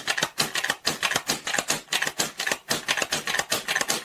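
Fast, uneven run of metallic clicks, several a second, from the mechanism of a Gamo G-1200 CO2 air rifle being worked by hand.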